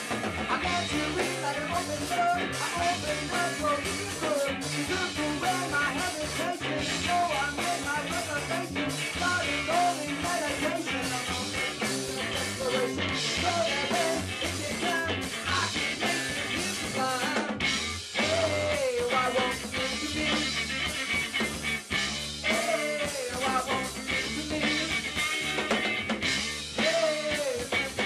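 Live rock band playing on electric guitar, electric bass and drum kit, with a bending melody line on top.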